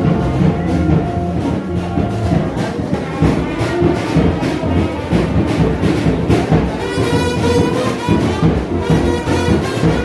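Music played with brass instruments over a steady drum beat.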